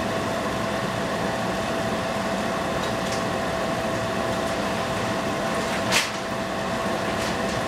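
Spring rolls deep-frying in hot oil: a steady bubbling sizzle under a constant hum, with one sharp pop about six seconds in.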